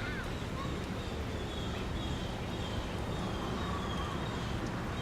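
Outdoor ambience: a steady low rumble with short, high chirping calls of birds repeating over it.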